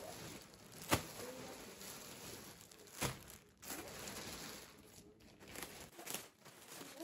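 Rustling and crinkling handling noise, with sharp knocks about a second in and about three seconds in.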